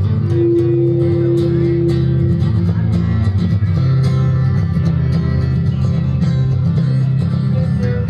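String band playing a bluegrass/old-time tune on fiddle, banjo, acoustic guitar and upright bass, with one note held for about two seconds near the start.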